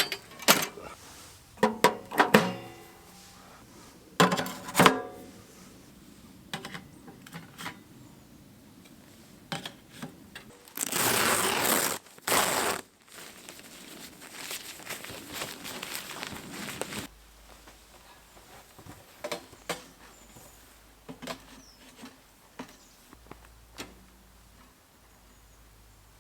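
Metal clanks and knocks of a portable wood-burning tent stove being handled as its legs are pulled out, with a rushing noise of about two seconds near the middle.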